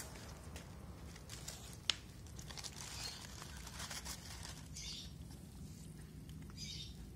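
Faint crunching and crinkling at close range as street kittens feed on scattered dry cat food, with a sharp click about two seconds in and a few short crinkly bursts later.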